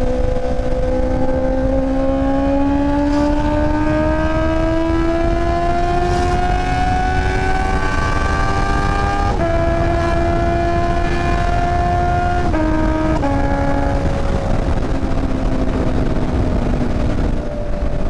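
Honda CB650R inline-four engine pulling hard under riding load, its pitch climbing steadily for about nine seconds, then dropping sharply with an upshift. It holds, shifts again briefly, then slowly falls as the throttle eases, over a constant low rush of noise.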